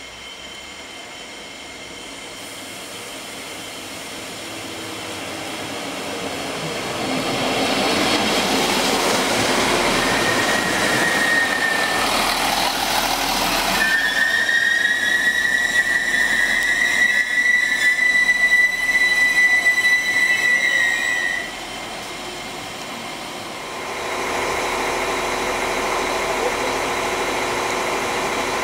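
Diesel multiple unit pulling into a station. Its wheel and running noise grows louder as it comes closer, then a high, steady brake squeal sounds: briefly, then again for about seven seconds until it cuts off as the train stops. Near the end, after a cut, a steady diesel engine hum is heard from another approaching unit.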